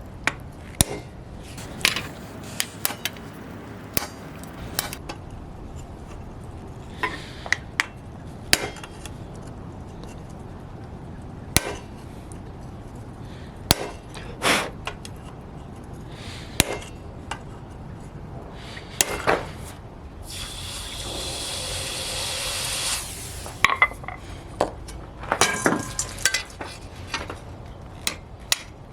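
Hammer striking hot steel bar stock on an anvil, irregular single blows and short runs of taps, with metallic clinks between them. About two-thirds of the way through, a steady hiss lasts a couple of seconds.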